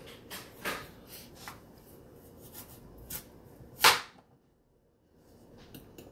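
Chef's knife cutting the end off a raw green papaya on a plastic cutting board: scattered light knocks and scrapes, with the loudest knock about four seconds in.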